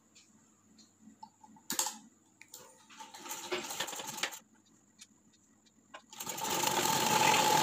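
Cloth rustling and a few light clicks as fabric is set under the presser foot, then about six seconds in a sewing machine starts running steadily, stitching the side seam.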